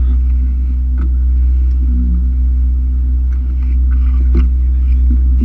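Boat engine running steadily with a low drone under the deck, with a couple of short knocks about a second in and near the end.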